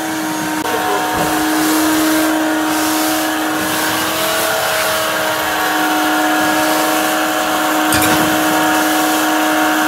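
A 5.0 HP wet/dry shop vacuum running steadily with a constant motor hum as its hose is worked over a bare bus floor, with a brief click near the end.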